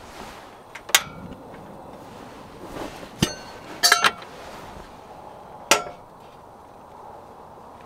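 Metal objects knocking and clinking together: a handful of irregular sharp knocks, a quick cluster of clinks about four seconds in, several of them ringing briefly.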